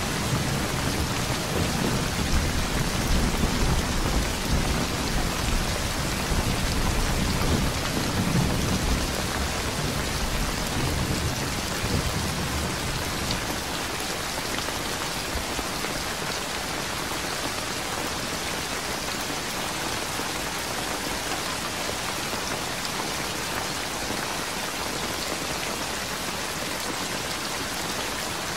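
Steady rain falling, an even hiss of drops that does not let up. In the first half a low rumble swells and eases beneath it, then dies away about halfway through.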